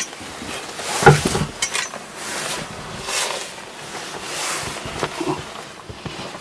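Footsteps crunching through deep fresh snow, one crunch roughly every second, with a sharp knock about a second in.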